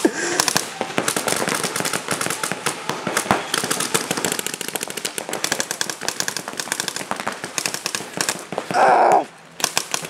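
Paintball markers firing in rapid strings, several at once, a dense fast clatter of pops throughout. About nine seconds in there is a louder, brief burst of noise.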